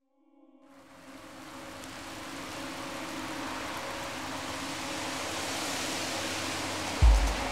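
Steady rain fading in from silence and building to a steady downpour, with a few low sustained musical tones beneath it. About seven seconds in, a single deep boom.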